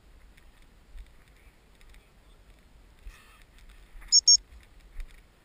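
Two short, high-pitched blasts on a gundog whistle in quick succession, about four seconds in, much louder than anything else; otherwise faint low background noise with a click near the end.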